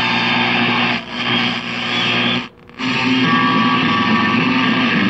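Rock music with electric guitar playing through the speaker of a restored Admiral radio, dipping briefly about a second in and cutting out for a moment about halfway through.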